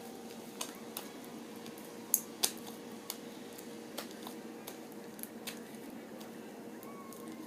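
Homemade fluffy slime being squeezed and worked by hand, giving scattered sharp clicks and pops, the two loudest a little over two seconds in.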